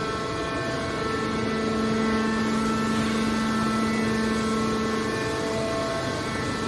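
Metal baler machine running with a steady hum and a held whining tone, typical of a hydraulic pump unit under power.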